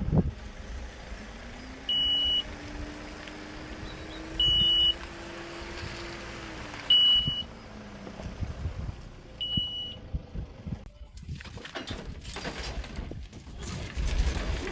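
Van engine running, its note slowly rising and then falling, with a short high warning beep sounding four times, about every two and a half seconds. Near the end come irregular knocks and rustling.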